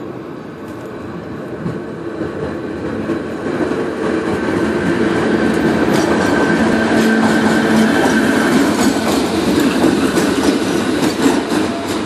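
DART electric commuter train approaching along the platform, growing louder over the first few seconds. Once it is alongside, its wheels clack over the rail joints under a steady whine.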